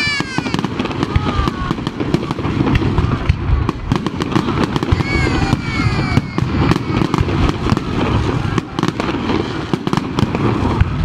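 Aerial fireworks display: a dense, continuous run of bangs and crackling as many shells burst overhead. Two high, falling calls cut through, one at the very start and one about five seconds in.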